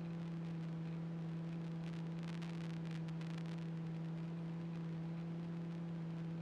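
Steady low hum with a few even overtones: the cockpit noise of a taxiing 1969 Citabria, heard faintly and smoothly through the headset intercom audio feed. There is a patter of faint ticks about two to three seconds in.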